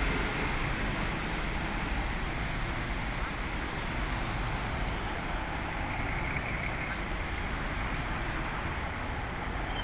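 A slow-moving train's coaches rolling through on the rails, a steady rolling noise that eases slowly as the train draws away.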